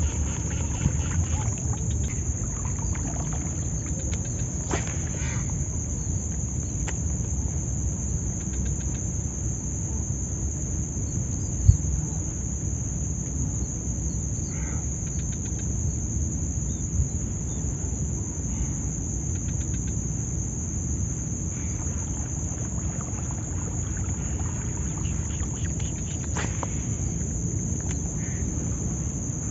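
Steady lakeside ambience: a constant high insect drone over a low, even rumble, with a few faint clicks and one sharp knock about twelve seconds in.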